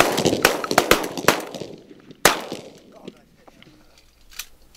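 Shotguns from several hunters firing a rapid volley of shots, thinning out over the first second and a half, with one more loud shot a little over two seconds in.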